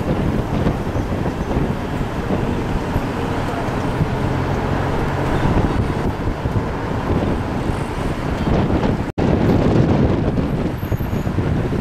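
Steady road and engine noise of a moving vehicle, with wind buffeting the microphone. The sound drops out for an instant about nine seconds in.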